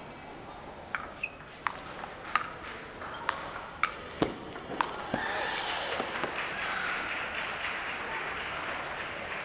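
Table tennis rally played with sandpaper paddles: about eight sharp clicks of the ball off the paddles and table over some four seconds. The rally then stops and a steady murmur of voices rises in the hall.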